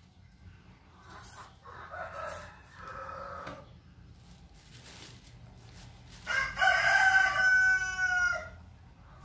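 A rooster crows once, a long call about six seconds in that is the loudest sound here. Before it come softer clucking calls from chickens.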